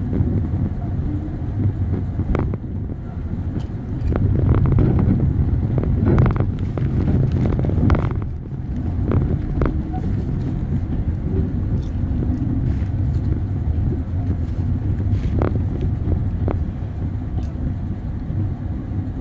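Moving passenger train heard from inside the coach: a steady low rumble of wheels on rail, with scattered short clacks as the wheels pass over joints in the track.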